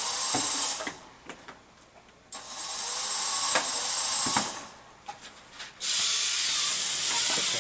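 Competition robot's electric motors running in abrupt on-off stretches: a hissing whir with a steady high whine. It runs about a second, stops, runs again for about two seconds, then starts once more near the end and holds steady, with a few light clicks in the gaps.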